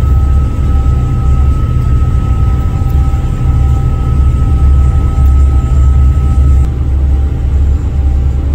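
Boat engines running at speed, heard on board as a loud, steady low drone mixed with rushing water and wind. A thin, steady high whine sits over it and stops about two-thirds of the way through.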